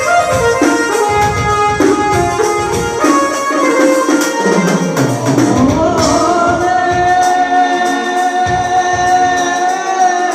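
Bengali folk song accompanied by keyboard, with hand drum and tambourine keeping a steady beat. The melody moves through short notes at first, then settles on a long held note for the last few seconds.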